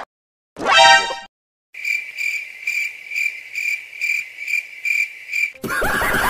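A high chirp repeated steadily about three times a second, cricket-like, for about four seconds. It follows a short, high squeaky cry about a second in.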